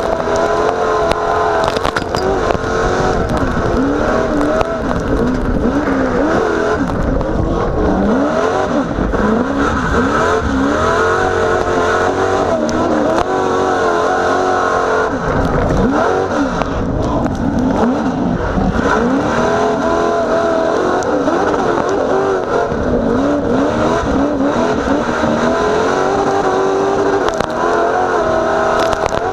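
A 900-horsepower short-course off-road race truck's engine at racing speed, heard from the cab, its revs climbing and dropping over and over as the throttle opens and closes.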